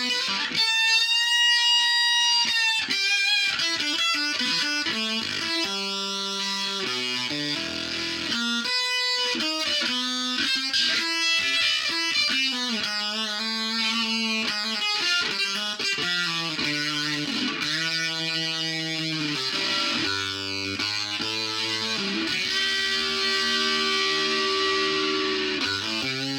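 Electric guitar played through a Behringer octave divider pedal: a run of picked notes, some held and some bent with vibrato.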